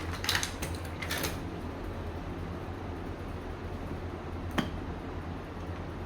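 Two short rattling bursts of small clicks in the first second and a half, then a single sharp click about four and a half seconds in, over a steady low hum.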